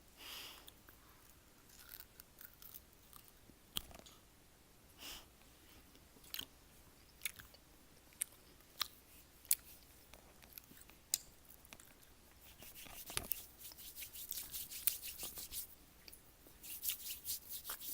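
A person chewing food: wet mouth clicks and smacks, scattered at first and coming thick and fast in the last few seconds.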